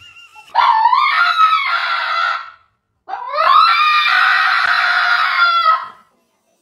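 A dog letting out two long, high-pitched screaming cries, each rising in pitch at the start and held for two to three seconds, with a short silent break between them.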